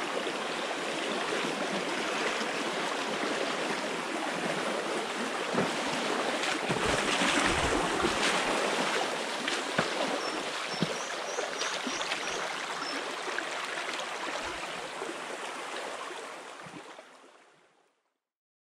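Shallow stream rushing over stones close by, a steady water noise, with louder splashing and a few knocks about six to nine seconds in. It fades out near the end.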